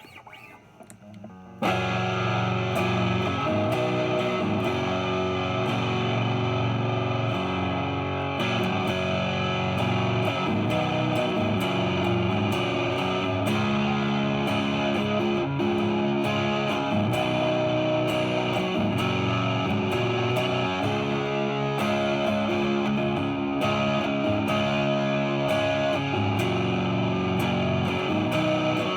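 Epiphone 1959 Les Paul Standard reissue on its neck pickup, strummed in chords straight through an Orange amp's distortion channel with no pedals. The playing begins about a second and a half in and then rings on steadily.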